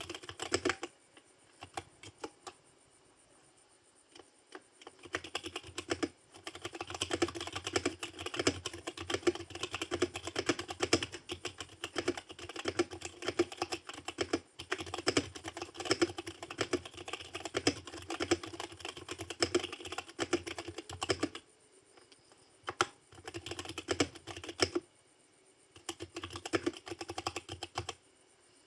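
Dareu EK871 mechanical keyboard with brown switches being typed on: a few scattered keystrokes, then rapid continuous typing for about fifteen seconds, broken by short pauses near the end.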